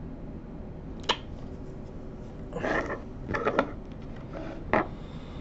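Small parts and the microscope body being handled on a worktable: a sharp click about a second in, a short cluster of clicks and scraping around the middle, and another click near the end.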